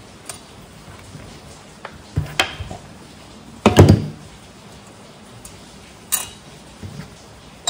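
Scattered clicks and clinks of small metal tools and parts handled on a chainsaw being reassembled at a workbench, with a louder dull knock a little before the middle.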